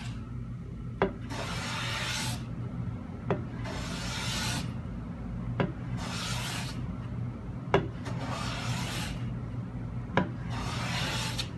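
Bronze-bodied hand plane taking light, even finishing passes on skew across a wooden panel with a sharp blade and set chip breaker: five strokes a little over two seconds apart, each opening with a sharp tap and followed by about a second of shaving hiss. A steady low hum sits underneath.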